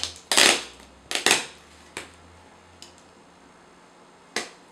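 Packing tape on a cardboard box being slit and torn open: two loud scraping rips in the first second and a half, then a few faint ticks and one sharp snap near the end.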